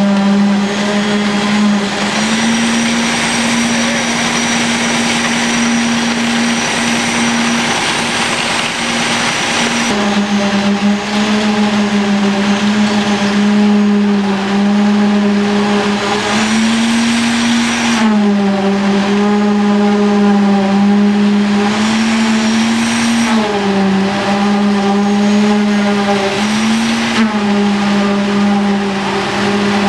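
A machine's motor running steadily with a loud hum, its pitch stepping slightly up and down every few seconds.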